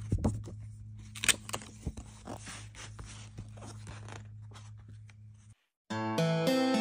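Glossy paper wall calendar being handled and its pages flipped: irregular rustling and sharp crackles of stiff paper over a low steady hum. Music starts near the end.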